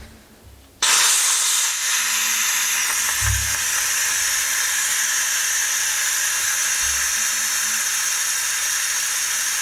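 Compressed air hissing out of the opened drain valve under the Meec Tools 24-litre compressor's air tank, blowing out the condensate water. It starts suddenly about a second in and then runs steady.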